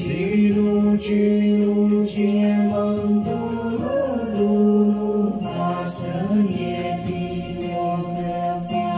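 A man singing slowly, holding long notes, with the pitch sliding up and back down about four seconds in and again near six seconds.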